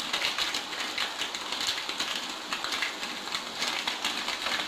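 Masala and freshly added spices frying in oil in an aluminium wok, sizzling with a steady, dense crackle.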